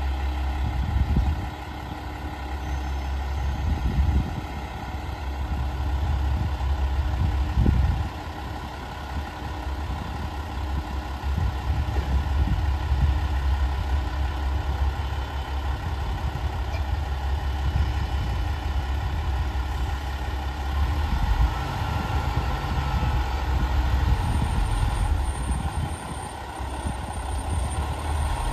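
Diesel engines of JR West KiHa 47 and KiHa 40 railcars idling at a standstill: a steady low rumble with a constant hum above it, swelling briefly a few times in the first eight seconds.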